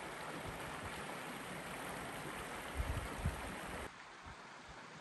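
Shallow, rocky river running over stones: a steady rushing hiss of water that drops quieter about four seconds in. A couple of low thumps come near three seconds.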